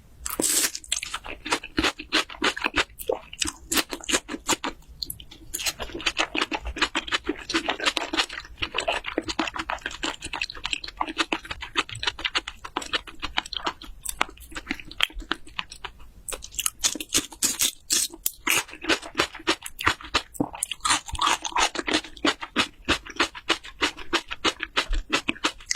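Close-miked wet chewing of raw seafood, salmon and raw shrimp: a fast, continuous run of smacking, squishy mouth clicks, broken by a few brief pauses.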